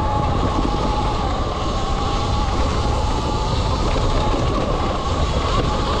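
Electric dirt bike being ridden: the motor whines at a few steady pitches that drift slightly with speed, over a constant rumble and rattle of the bike on rough ground.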